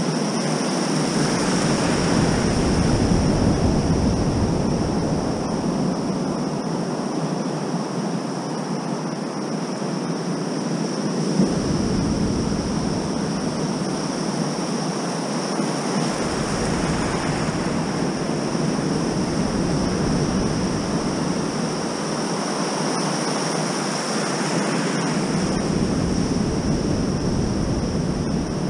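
Ocean surf washing in the shallows close to the microphone: a steady rush of breaking whitewater that swells and eases. A low buffeting rumble on the microphone comes and goes several times, about a second in, near the middle and near the end.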